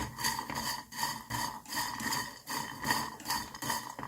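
Chopsticks scraping and knocking against a frying pan as dry, broken ramen pieces are stirred and turned over, making a quick, irregular clatter with a faint metallic ring from the pan.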